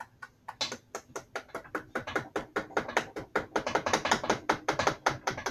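A hand-worked ratchet clicking rapidly and evenly, about six clicks a second, as it is cranked to tighten a strap or clamp around a stool seat being glued; the clicking stops abruptly near the end.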